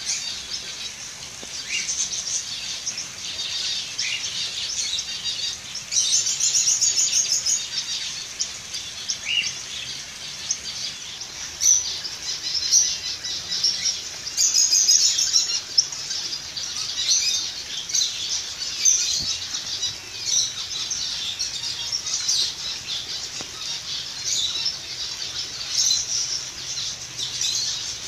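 A flock of small caged finches, zebra finches among them, chirping and chattering without a break in high, short calls. Two louder runs of rapid repeated notes stand out, about six and fourteen seconds in.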